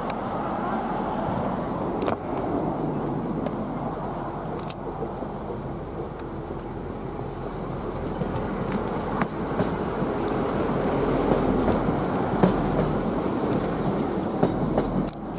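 Diesel railmotor running past on the track: a steady engine and wheel noise that swells in the second half, with a few sharp clicks.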